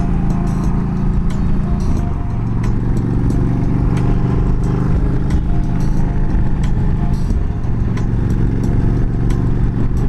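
Music playing from the motorcycle fairing's radio speakers, held chords changing every few seconds with a light beat, over the steady running of a Yamaha V Star 1300's V-twin engine and wind at highway speed of about 60 mph.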